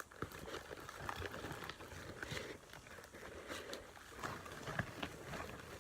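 Slime being scraped and worked out of a bowl by hand: a run of irregular small sticky clicks and squishes.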